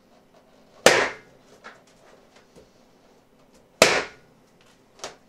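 Red latex balloons popped with a BBQ skewer: two loud bangs about three seconds apart, then a smaller pop near the end.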